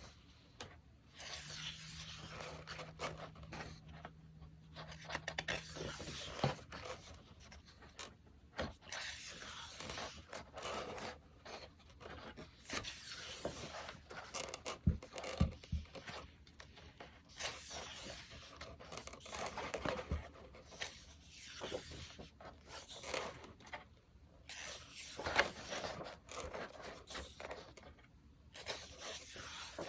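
Packaging being handled and opened by hand: wrapping rustling, scraping and tearing on and off, with a few soft knocks near the middle.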